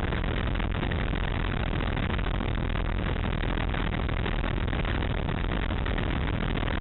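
Ultralight aircraft in flight, heard from its open cockpit: the engine runs steadily under dense wind noise, with no change in level.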